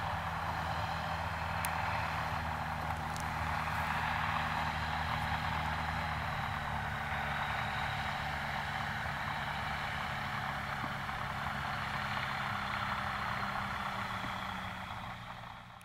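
EuroFox K2 light aircraft's engine and propeller running steadily at low power as it taxis on grass, fading out near the end.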